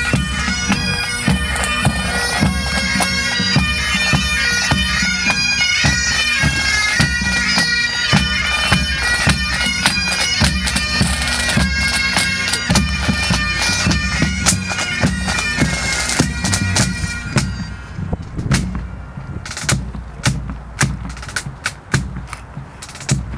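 A military pipe band of Highland bagpipes with snare and bass drums playing a march while marching. The pipes stop about three quarters of the way through, leaving separate drum strokes.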